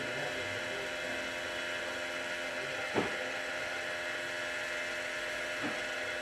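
Steady rush of water flowing through a 5900e water filter control valve and out its drain line during the rapid-rinse cycle, with a faint steady whine. Two soft taps come about halfway through and near the end.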